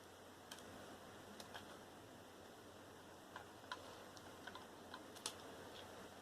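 Faint, irregular small clicks and ticks of computer parts and tools being handled during disassembly, about ten in all, the sharpest about five seconds in.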